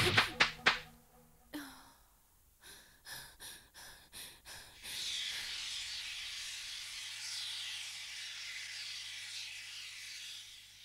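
A few sharp impacts at the very start die away quickly. After a short silence come several brief crackles, then from about five seconds in a steady hiss with a faint low hum underneath.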